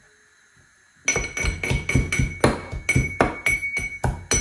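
Steel pestle pounding in a stainless steel mortar: quick, even metal-on-metal strikes, about four a second, each with a high ring. They start about a second in.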